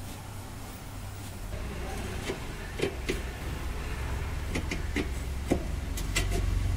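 Light metallic clicks and taps, about eight of them, as a nut is fitted by hand onto a rear suspension mounting bolt. Under them runs a steady low hum that cuts off near the end.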